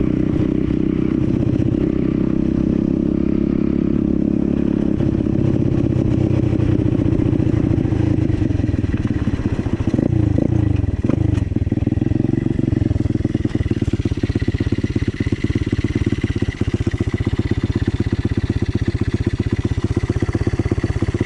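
A 125cc dirt bike's single-cylinder engine running under way. The engine pitch swings up and down about ten seconds in, then it settles to a slower, pulsing run with the separate firing strokes audible.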